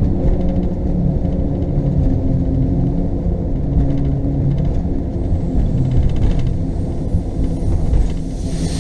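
Steady low rumble inside an RV cab as it drives slowly over a bridge's open steel grate deck, the grates making it shimmy. A hiss rises near the end.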